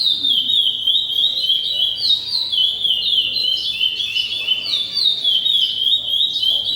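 A songbird singing a continuous, unbroken run of short notes that each fall in pitch, several notes a second, in the song type called 'floresta'.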